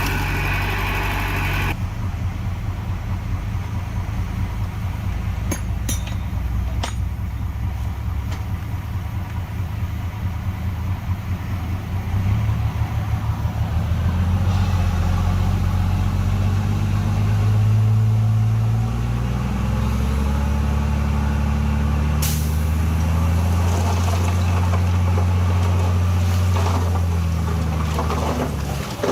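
Heavy diesel engine of earthmoving machinery running with a low, steady drone. It grows louder and heavier about twelve seconds in, as if under load, then eases near the end. A short sharp hiss comes about two-thirds of the way through.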